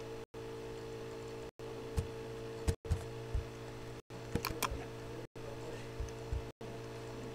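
Steady electrical hum with a scattering of short, sharp computer mouse clicks, some of them in quick clusters. The background cuts out briefly about every second and a quarter.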